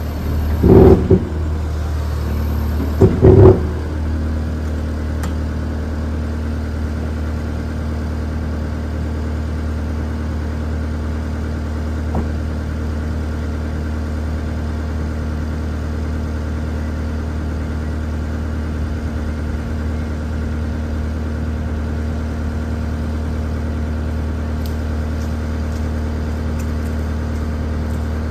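New Holland L228 skid steer's diesel engine running steadily while holding up the front of a school bus on its forks, well beyond its rated lift capacity. Two short, loud bursts come about one and three seconds in.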